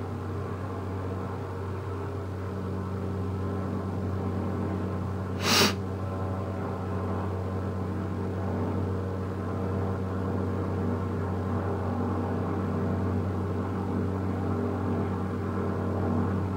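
Helicopter running steadily, a low droning hum that slowly grows a little louder. One short sharp knock about five and a half seconds in.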